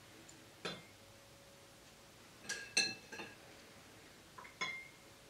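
Hard candy canes clinking against a glass mason jar as they are dipped into water, several light clinks with a brief ring, spaced irregularly.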